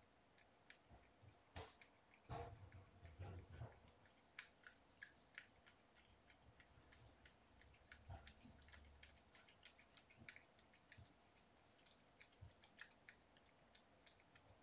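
Faint, scattered clicks and ticks from kittens moving and jostling in a plush bed, with a few soft thumps about two to four seconds in.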